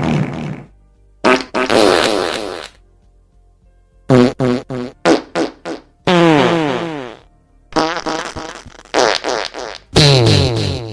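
A string of about a dozen separate fart sounds with short silences between them. Some are brief and sputtering in quick clusters, and others last about a second with a pitch that slides up or down.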